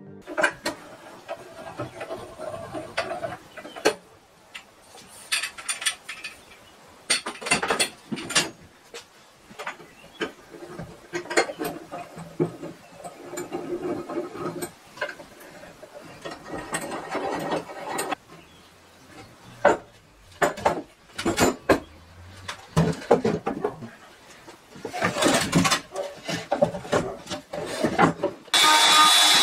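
Metal pipe clamps being cranked and adjusted on a glue-up of wooden boards: irregular clicks, rattles and scraping of the clamp screws and jaws, with knocks of wood on wood. Near the end a router motor cuts in abruptly, running steadily.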